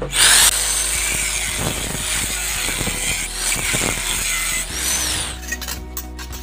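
Handheld angle grinder with a cutting disc slicing through a steel plate: the motor comes up to speed at once and keeps up a loud, harsh cutting noise with a high whine that wavers in pitch as the disc bites. It stops about five seconds in, followed by a few light clicks.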